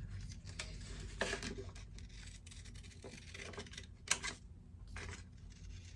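Scissors cutting a sheet of paper stickers: a few quiet, separate snips with paper rubbing between them.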